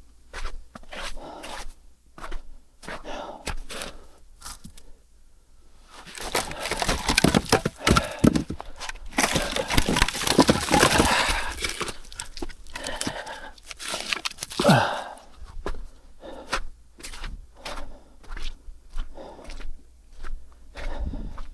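Dry kindling and firewood being handled and snapped: scattered clicks and knocks, with a dense stretch of crackling and rustling in the middle.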